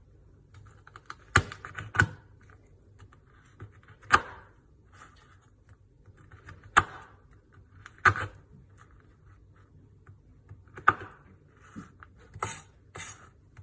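Irregular knocks and clicks of kitchen utensils and dishes being handled, with a sharp knock every second or few and faint scraping between.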